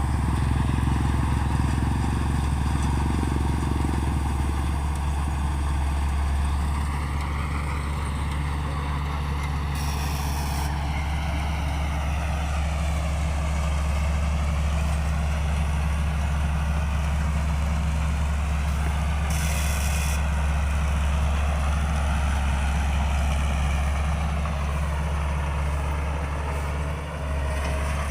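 Diesel engine of a Kaset Pattana 225 hp rice combine harvester running steadily at working speed, a deep continuous drone whose pitch slowly rises and falls.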